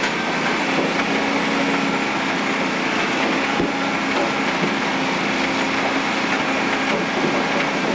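Badger B-2060-S shredder running steadily while grinding asphalt: a constant machine drone with a steady hum under a dense grinding noise.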